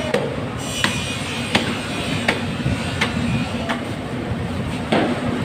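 Knife strokes cutting into the head of a large bluefin tuna: six sharp strikes, evenly spaced about 0.7 s apart, then a duller knock near the end, over a steady low hum.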